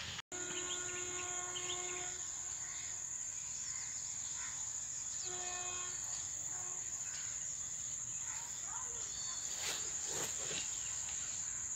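Crickets shrilling steadily in one high, unbroken tone, while a distant train horn sounds twice, each a flat note of under two seconds, the second a few seconds after the first.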